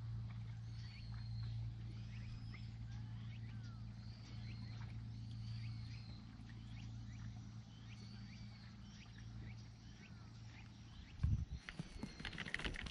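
Calm outdoor ambience over water: faint high chirping calls, repeated every second or so, over a steady low hum. About eleven seconds in, a run of sharp close knocks and rattles comes in, louder than the rest.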